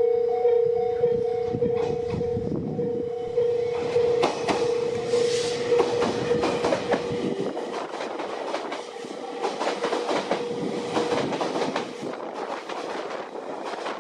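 Japanese railway level-crossing alarm ringing in a steady repeated ding while a train passes, its wheels clattering in sharp clicks over the rail joints. The alarm fades out about three seconds before the end while the clatter trails off.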